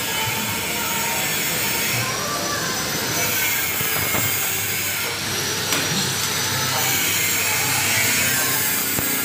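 A power tool running steadily in a metal workshop, a noisy hiss with a high whine that drifts slowly up and down in pitch.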